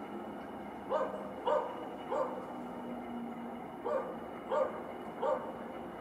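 A dog barking six times in short single barks, irregularly spaced, over a steady background hum.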